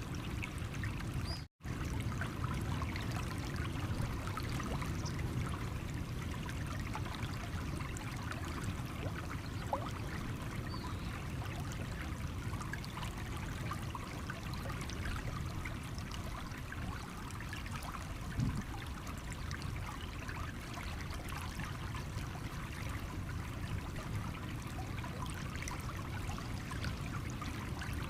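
A stream running and trickling over stones, a steady rush of water with small splashes. The sound cuts out completely for a split second about a second and a half in.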